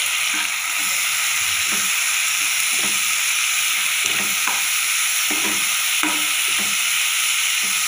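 Chopped onions and tomatoes sizzling in hot oil in a steel pan, with a spoon scraping across the pan as they are stirred, about two strokes a second.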